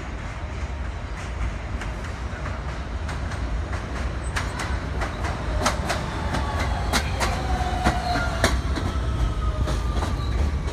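R160B subway train with Siemens propulsion pulling into the station as it brakes. Its wheels clack over the rail joints, and a faint electric motor whine falls in pitch as it slows. The train grows steadily louder as it comes alongside.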